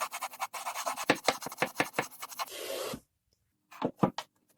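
A hand file draw-filing a wooden board edge, with quick back-and-forth rasping strokes taking down a proud edge. The strokes stop abruptly about three seconds in, then come two light taps.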